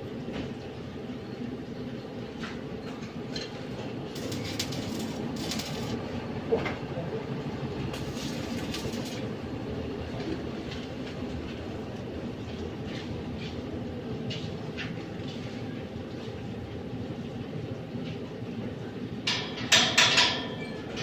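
Short bursts of arc-welding crackle and hiss as steel grill bars are tack-welded, the loudest burst near the end. A steady low hum runs underneath.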